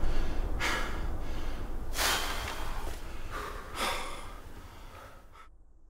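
Heavy breathing of men out of breath: a few loud breaths about a second and a half apart, fading away and cutting off shortly before the end.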